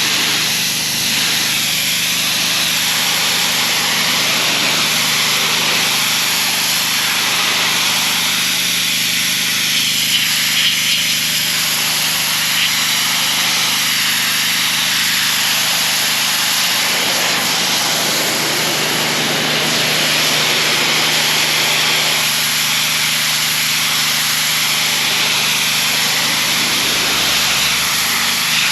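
Gas-engine pressure washer running steadily, its small engine humming under the hiss of the high-pressure water jet spraying against a retaining wall.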